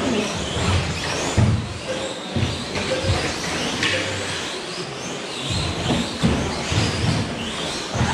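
Electric 1/10-scale short course RC trucks racing: motors whining up and down in pitch as the trucks accelerate and brake, with repeated low thuds from the trucks hitting the track.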